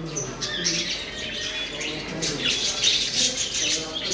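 Birds chirping in a loft, many quick high calls overlapping throughout, with lower wavering cooing underneath.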